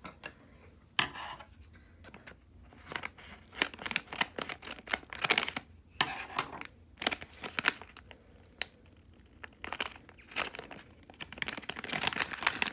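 A Hatchimals CollEGGtibles blind pack being torn open by hand, its wrapper tearing and crinkling in irregular bursts that grow denser near the end.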